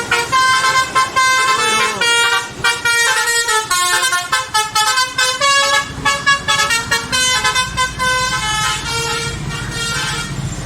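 Indonesian bus 'telolet' horn: a set of multi-tone air horns playing a fast tune of short, changing notes. The bus engine runs underneath, louder near the end.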